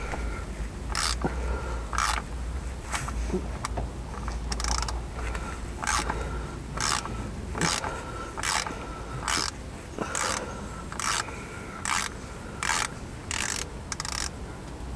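Ratchet clicking in short repeated strokes, about one burst every three-quarters of a second, as it turns an oil filter cap wrench to undo a car's oil filter housing.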